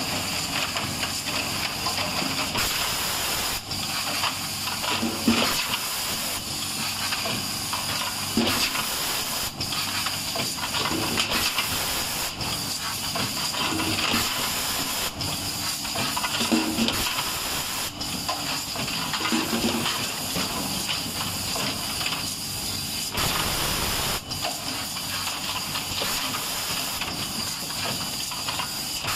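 Pneumatic rotary cap-lining machine running its foil-inserting cycle: a steady air hiss with a sharp click about once a second as the machine cycles.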